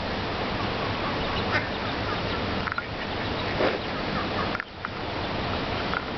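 Ducklings calling, a scatter of short calls about a second apart, one of them stronger about halfway through, over a steady rushing noise.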